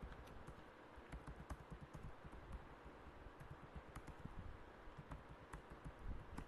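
Faint computer keyboard typing: irregular key clicks, several a second, over a low steady rumble.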